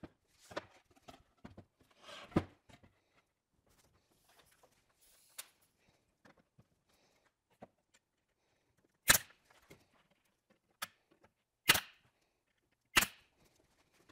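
18-gauge brad nailer firing three sharp shots in the second half, tacking cabinet panels together with 1-inch brad nails. Before them come lighter knocks and rattles as the wooden parts are handled and set in place.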